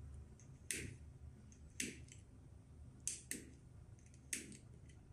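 About five faint, sharp clicks at irregular intervals, from jumper-wire ends being held and shifted against the terminals of lithium-ion power-tool battery packs. A good pack is being jumped to an over-discharged one to try to wake its locked-out protection circuit.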